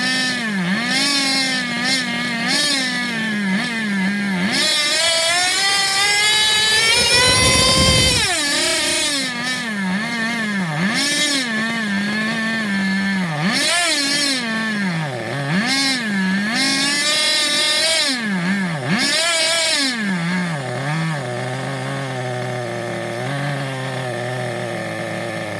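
FTX Zorro RC car's two-stroke nitro glow engine running on the bench and revved by hand at the throttle. It surges up and down, makes one long climb to a high rev about eight seconds in, and after several shorter revs settles to a lower, steady idle for the last few seconds.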